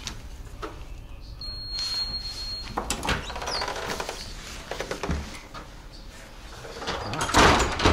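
Electronic door-access card reader giving one long high beep as a pass is held to it, then a click about three seconds in as the door is unlatched and pushed open. A louder burst of noise near the end is the loudest thing heard.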